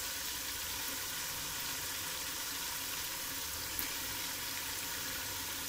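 Tomato-onion masala with ginger-garlic paste sizzling steadily as it fries in oil in a large pot.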